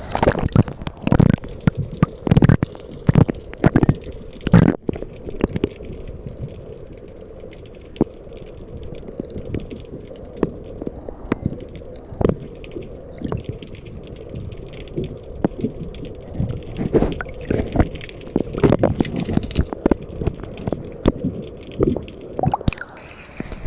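Underwater sound from a submerged camera in a waterproof housing: muffled gurgling water with irregular knocks and thumps. The thumps come thick for the first few seconds, thin out in the middle, and pick up again near the end.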